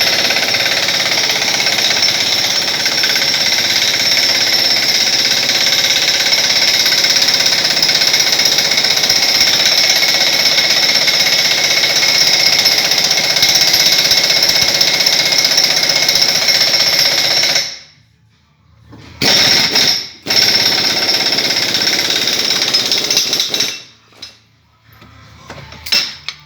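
Pneumatic impact wrench hammering steadily as it turns a clamp's screw to press a rubber-metal bushing into a BMW E34 rear subframe. It runs continuously for about seventeen seconds, stops, then gives two more shorter bursts and stops as the bushing seats.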